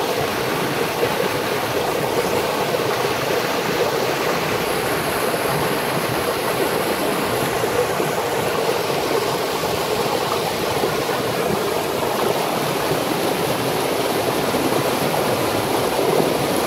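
Shallow river water rushing over rocks in a small cascade, a steady, unbroken rush.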